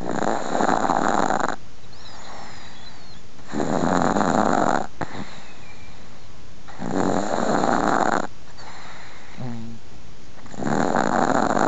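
An old Chihuahua snoring in its sleep: four snores, one about every three and a half seconds, each lasting a little over a second.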